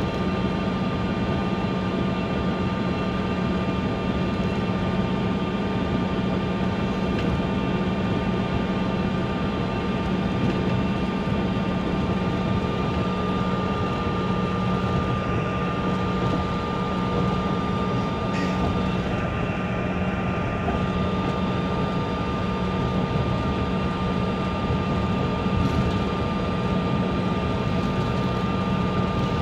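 Airliner's engines running steadily, heard from inside the cabin as the plane taxis on the ground: a constant hum and whine that holds one pitch throughout.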